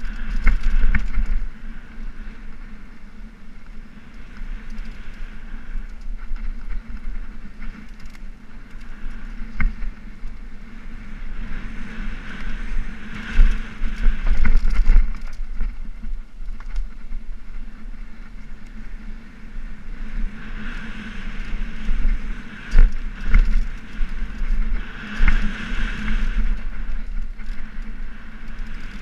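Mountain bike descending a dirt singletrack, heard from a camera mounted on the bike: wind rumbling on the microphone and tyres rolling over dirt, with the bike rattling and sharp knocks as it hits roots and bumps.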